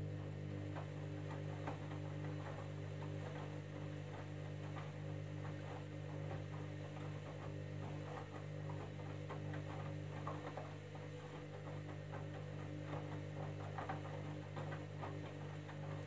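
Candy front-loading washing machine's drum motor running with a steady low hum as the drum turns in the wash, with jeans and water sloshing and knocking irregularly inside.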